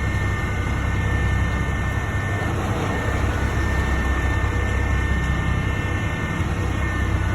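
Concrete pump truck running, a steady low diesel drone with a faint steady whine above it.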